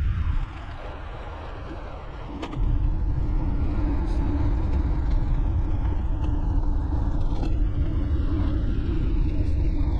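Wind rushing over the microphone of a moving road bike, a heavy low rumble with road noise; it drops off for about two seconds near the start, then comes back as strong as before.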